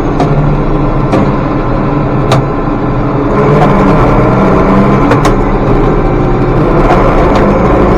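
International Harvester 1086 tractor's six-cylinder diesel engine running steadily while pulling loaded grain wagons, with a few sharp clicks scattered through; the owner says this engine knocks from a warped cylinder head. The engine pitch rises slightly near the end.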